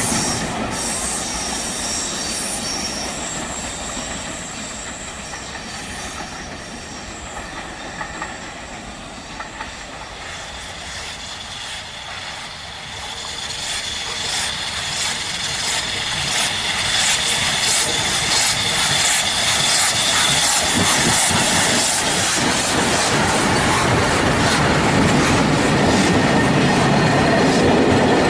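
A train running on rails, with a high wheel squeal near the start. The sound dies down toward the middle, then builds again with a quick clickety-clack of wheels over the rail joints.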